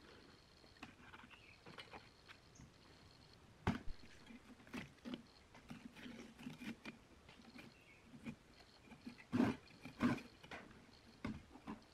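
Faint rustling, scraping and clicking as the old rubber surround is peeled off a rusted speaker's metal frame and the frame rim is scraped with a hand tool. A few sharper knocks come about a third of the way in and twice near the end.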